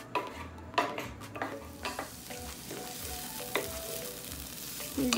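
Wooden spoon stirring chopped onions in a stone-coated nonstick frying pan, scraping and knocking against the pan, while the onions sizzle in olive oil. The knocks are most frequent in the first two seconds, then a steadier sizzle takes over.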